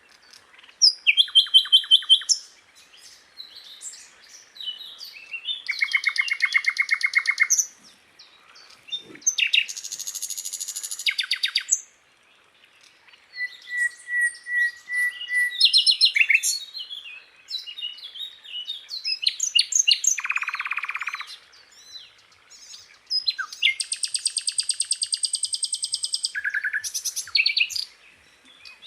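Sikatan londo flycatcher singing a varied song: phrases of fast trills and rattles alternate with whistled notes, with short pauses between phrases.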